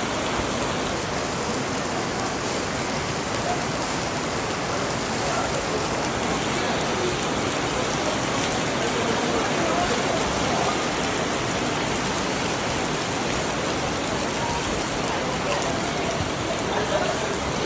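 Steady rain falling during a storm.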